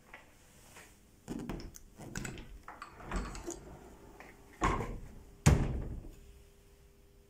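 Wooden doors being handled: a run of knocks and clunks, then two louder thuds, the last and loudest about five and a half seconds in, like a door shutting.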